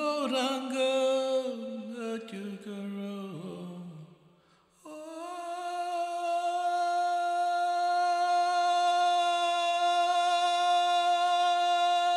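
A voice humming without words: a wavering phrase that slides downward in pitch for about four seconds, then, after a short break, one long steady held note.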